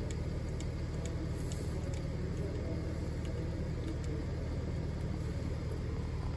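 Volkswagen Amarok's 3.0 V6 TDI turbodiesel idling steadily, heard from inside the cab as an even low rumble, with a few faint clicks over it.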